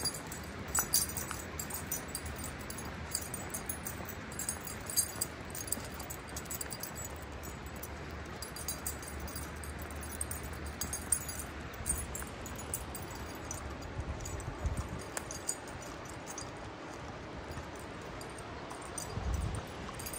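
Walking sounds on a paved path: irregular footsteps with a light metallic jingling, over a steady outdoor background hiss.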